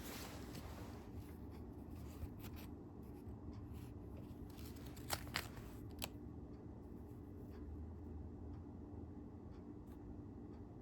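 Faint handling of a tripod and its packaging, light rustling with a few sharp clicks about five to six seconds in, over a low steady hum.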